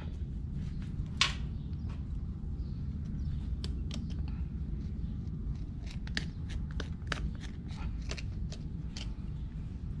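Sharp clicks and cracks of barnacles being picked and pried off a small sea turtle's shell by hand: one loud crack about a second in, then a quick run of clicks through the second half. A steady low rumble sits underneath.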